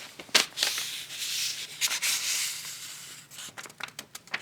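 Paper rustling and rubbing as the pages of a picture book are handled and turned, ending in a run of short sharp clicks.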